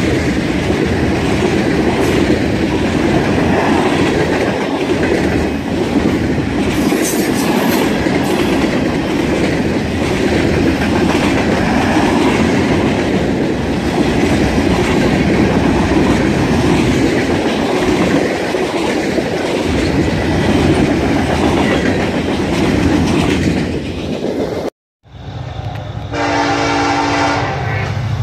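Freight train passing close by: a steady rumble and clatter of tank cars, boxcars and covered hoppers rolling on the rails. Near the end the sound cuts off abruptly, and a diesel locomotive's multi-tone air horn sounds in short blasts over the low rumble of the approaching engine.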